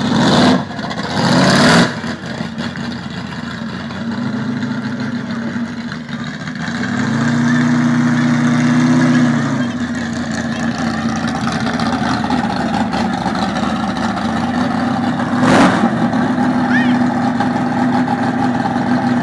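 Vintage panel truck's engine revving up and held at high revs for a few seconds, as for a burnout, then settling to a steady run. Two short loud noises come in the first two seconds, and another about 15 seconds in.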